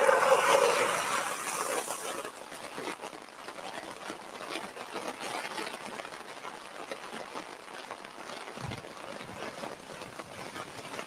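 Flash-flood water rushing past a bridge, a steady noisy rush that is louder for the first two seconds or so and then settles to an even level.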